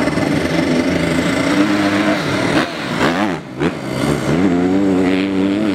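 Motocross dirt bike engines revving hard on the track. About three seconds in, the revs drop and climb back up.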